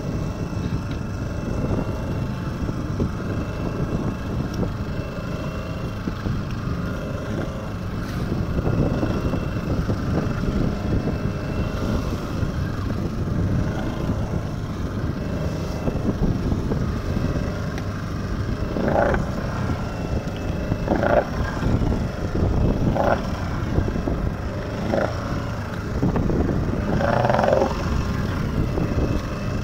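A small fishing boat under way at sea: a steady, loud low rumble of motor and wind, with water washing along the hull. From about two-thirds of the way through, short sharp sounds come roughly every two seconds.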